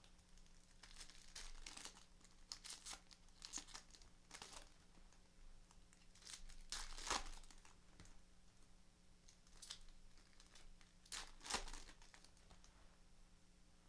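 Wrappers of baseball card packs being torn open and crinkled in a series of short rustles, the loudest about seven and eleven and a half seconds in.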